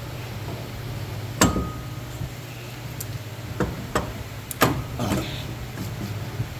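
Metal tools and parts clanking and tapping about half a dozen times at uneven intervals while the mower's PTO clutch is worked back into place; the loudest clank comes about a second and a half in and rings briefly. A steady low hum runs underneath.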